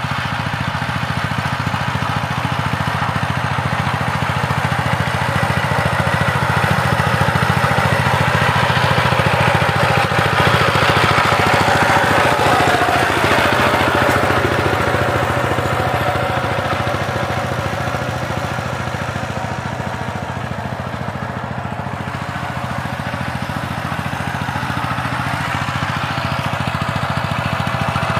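Single-cylinder diesel engine of a two-wheel power tiller running steadily under load while tilling a field. It is loudest about halfway through, when the machine is close, then a little softer.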